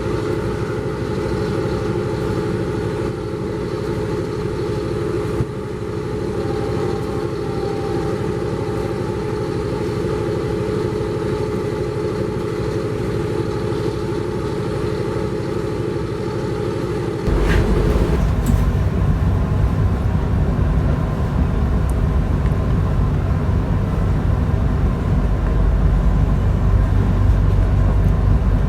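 Train noise: a steady hum from the passenger carriage, which changes abruptly about seventeen seconds in to a louder, deeper rumble of a train running on the rails.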